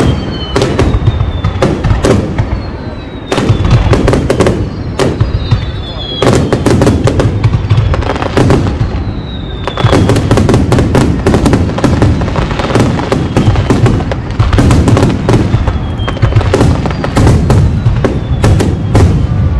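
Aerial firework shells bursting in rapid succession: deep booms overlapping with sharp cracks and crackle, and several high whistles falling in pitch.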